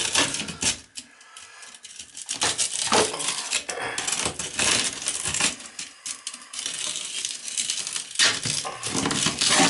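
Irregular clinks, rattles and crinkling of small hardware and packaging being handled, as a toilet flange repair ring is fitted.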